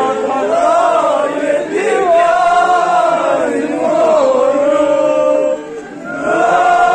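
Male voices chanting a Kashmiri noha, a Shia mourning lament, in long held phrases that rise and fall in pitch, with a short break about six seconds in before the next phrase.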